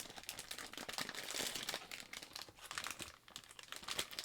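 A bag of Jelly Babies sweets being handled and opened: plastic packaging crinkling and rustling in quick irregular crackles, busiest in the first couple of seconds.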